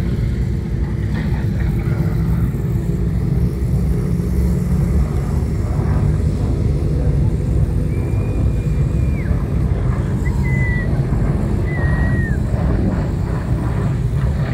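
A car driving, a steady, loud engine and road rumble heavy in the low end. In the second half come a few short, high whistling tones.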